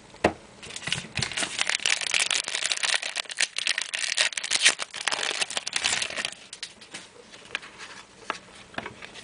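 Trading-card pack wrapper crinkling as it is torn open and handled, dense for about six seconds, then fading to scattered rustles and clicks.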